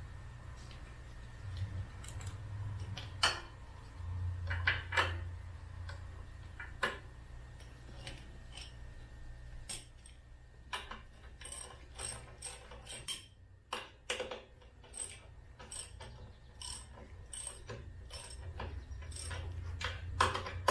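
Hand socket ratchet with a deep-well socket clicking as nuts are tightened on hitch mounting bolts, in irregular runs of clicks, with a few louder metal knocks in the first few seconds.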